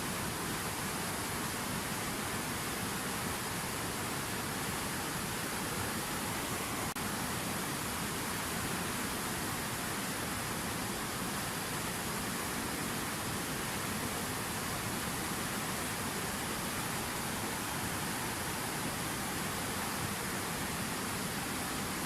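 Water falling steadily from a fountain waterfall: an even, unbroken rush of splashing water.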